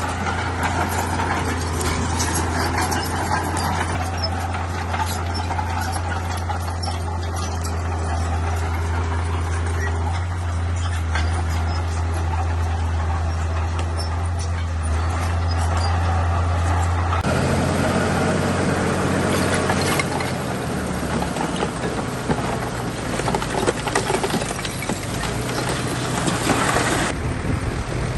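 Heavy diesel engine of earthmoving machinery running under load with a steady low drone. About two-thirds of the way through the sound changes abruptly to a rougher run with many short clanks and knocks.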